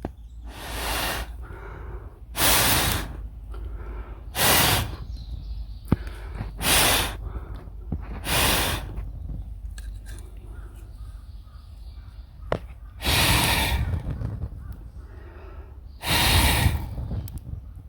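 A wood fire being blown on in repeated short puffs, about seven in all and each under a second, with the fire's crackles and sharp pops between them.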